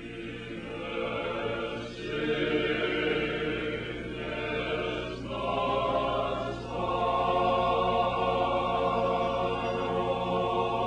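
Choir singing an unaccompanied Orthodox funeral hymn in held chords, swelling about two seconds in and again near seven seconds.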